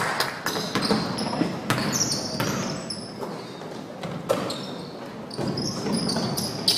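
Basketball dribbled and bounced on a gym's hardwood floor, with short high squeaks of sneakers on the court about two seconds in and again near the end.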